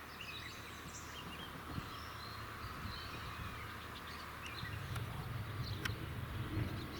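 Scattered faint chirps of small birds over a low rumble of wind on the microphone; the wind grows a little stronger in the second half.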